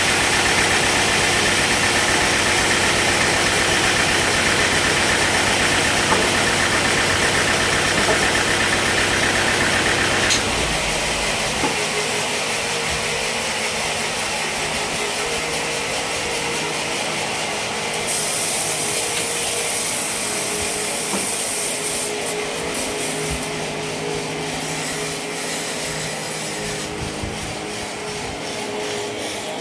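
A woodworking machine runs steadily with a low hum, then the sound changes suddenly about a third of the way in to wood being rubbed and sanded, with a harsher high hiss joining past the middle.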